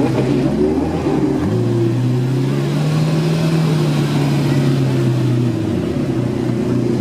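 Ferrari F40's twin-turbo V8 running as the car moves off at low speed. Its revs rise about a second and a half in, hold, then drop back a second or so before the end.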